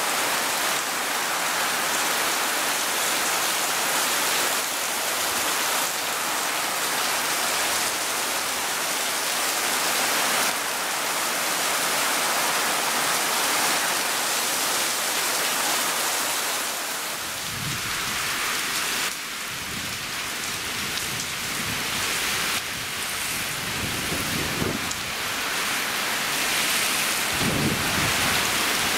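Heavy tropical-storm rain pouring steadily, an even hiss. A little past halfway, low rumbling swells come in under the rain, stronger twice near the end.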